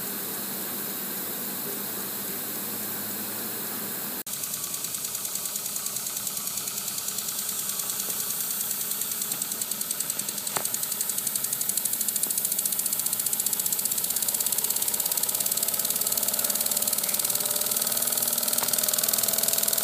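Model oscillating steam engine running, with a fast, even beat of exhaust puffs. At first there is only a steady hiss. About four seconds in, the hiss gives way to the running beat, which grows louder through the rest.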